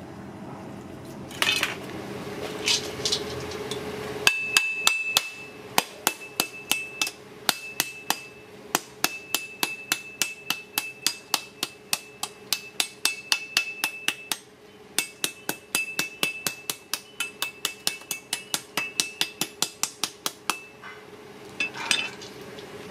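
Large knife tapping repeatedly on the thick shell of an ostrich egg to crack it open, about three sharp strikes a second with a short pause midway. Each strike has a light metallic ring.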